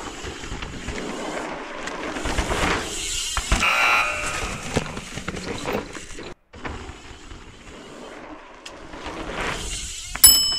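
Mountain bike rolling down a dirt jump trail: a steady rough rush of tyre and riding noise, broken by a brief abrupt dropout about six seconds in. Just before the end, a sharp click starts, with steady high tones after it.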